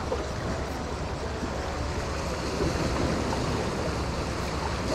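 Small sea waves washing steadily against the rocks of a stone jetty.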